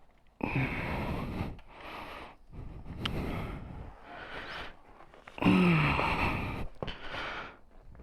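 A man breathing hard in a run of loud, noisy breaths, with a short voiced grunt about five and a half seconds in, while straining to work a stuck motorcycle exhaust off.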